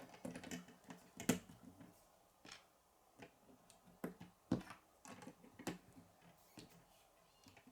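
Plastic K'nex pieces clicking and knocking as they are handled and snapped together, in scattered irregular clicks, two of them louder about a second in and about four and a half seconds in.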